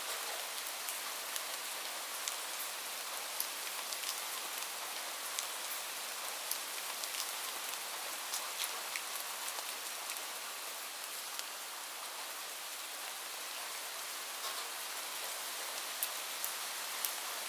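Light rain falling steadily: an even hiss with scattered individual drops ticking sharply on a surface.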